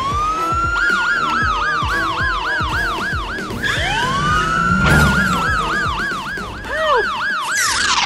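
Police siren sound effect: a rising wail that breaks into a fast up-and-down yelp of about four to five sweeps a second, then a second wail and yelp about halfway through, over background music. A short high hiss comes near the end.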